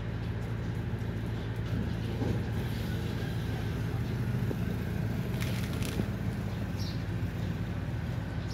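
A steady low motor hum, like an idling engine, with faint clicks and smacks from puppies eating out of a plastic bowl.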